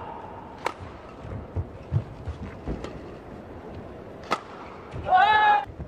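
Badminton rackets striking a shuttlecock during a doubles rally: sharp smacks, the loudest about two-thirds of a second in and again just after four seconds, with softer hits and thuds of footwork between. About five seconds in comes a short, high, wavering squeal.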